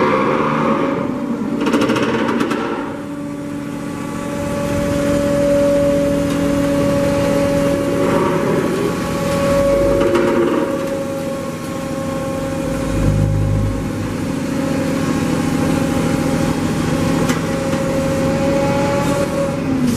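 Refuse trailer's hydraulic system running with a steady, even-pitched hum, with a few metallic clanks from the moving steel panel and ram.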